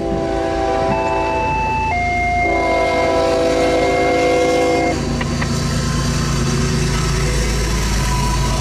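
A diesel freight locomotive's air horn sounding its warning as it nears a grade crossing: a chord of several held notes whose pitch changes a couple of times, for about five seconds. Then the horn stops, and the rumble of the locomotive and its freight cars rolling past goes on.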